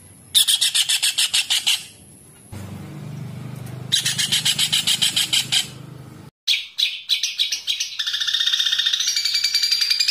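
Masteran recordings of songbird calls spliced back to back: bursts of fast, evenly repeated high chirps, several notes a second, switching abruptly to another recording a few times, then a continuous high trill over the last two seconds.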